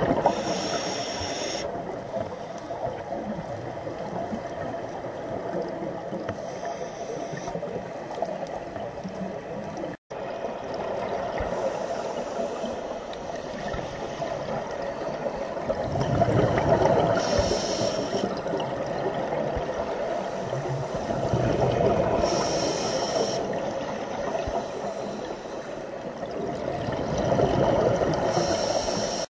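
Scuba regulator breathing heard from underwater: a short hiss as the diver inhales, then a louder gurgling rush of exhaled bubbles, repeating every five or six seconds over a steady wash of water noise.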